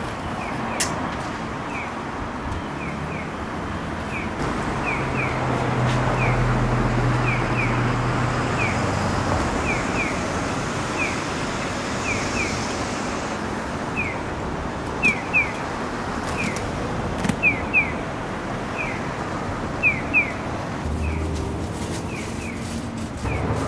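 Japanese pedestrian crossing signal chirping its electronic bird call, single and double chirps alternating about once a second, over steady street traffic noise. A vehicle hums past early on, and three pairs of sharp knocks stand out in the second half.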